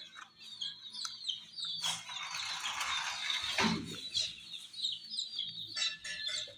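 A group of baby chicks peeping, many short high chirps overlapping throughout. About two seconds in, a burst of rustling noise lasts under two seconds and ends in a soft thump.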